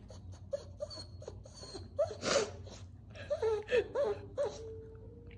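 Maltese dog, just after cruciate ligament surgery, whimpering: a string of short, wavering whines that end in one held whine near the end. A short breathy noise comes about two seconds in.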